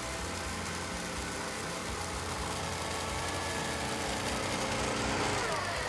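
Engine of a Rostin twin-track mini ATV running steadily as it pushes through deep snow, growing louder as it comes closer and rising in pitch near the end as it revs up.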